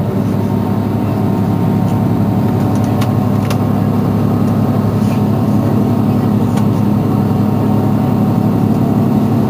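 Mercedes-Benz Citaro C2 city bus engine idling steadily while the bus stands still.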